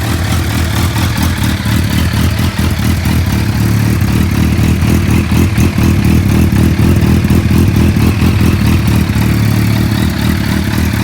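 Kawasaki sport bike's inline-four engine running loud and steady, its pitch holding at an even engine speed with no clear revs.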